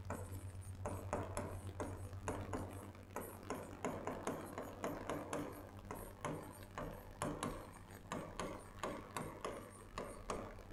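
Stylus writing by hand on an interactive whiteboard screen: short, irregular taps and scrapes, about two or three a second, over a steady low hum.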